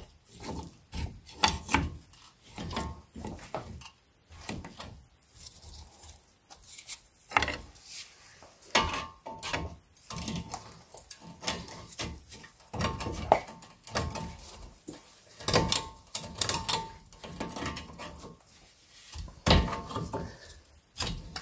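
Steel pry bar levering a front brake caliper off its disc, with irregular metallic knocks, clicks and scrapes, some clanks ringing briefly.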